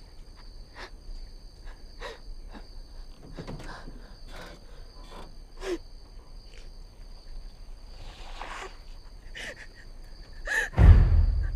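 Crickets chirping steadily at night, with soft scraping and rustling of a person crawling on dirt under a car. Near the end a sudden, very loud, deep hit breaks in.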